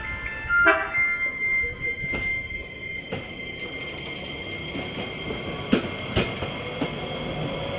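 Iyotetsu 5000-series low-floor tram (car 5002) rolling past, its wheels squealing in a steady high whine that starts about a second in, with several sharp clacks as the wheels cross rail joints. A short, loud tone sounds just before the squeal begins.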